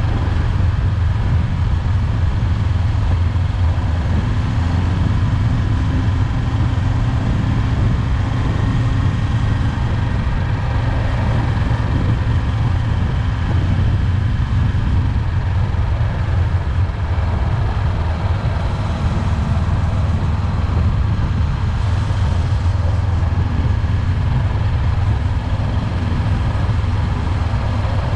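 Honda 400X's parallel-twin engine running steadily under way, mixed with wind and road noise on a bike-mounted action camera.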